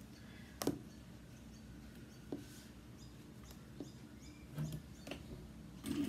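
Fabric being handled and positioned under the presser foot of an industrial sewing machine: a few faint clicks and a soft thump, then the machine starts stitching just before the end.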